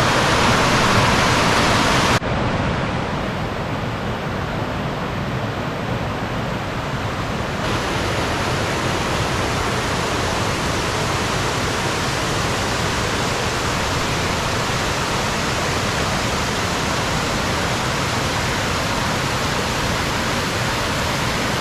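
Waterfall rushing steadily: a continuous, fairly loud wash of falling water. It turns duller abruptly about two seconds in, then brightens again a few seconds later.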